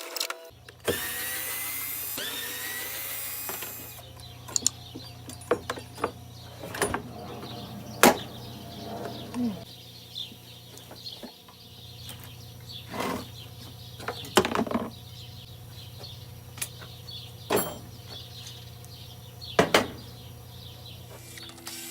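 Disassembly of an electric push mower. A power tool, such as a drill or driver, runs for about three seconds near the start, then scattered sharp clanks and knocks of metal parts being worked and handled. A steady low hum runs underneath.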